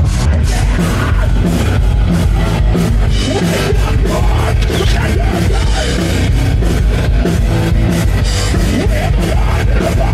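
Loud heavy metal music with fast, dense drum hits.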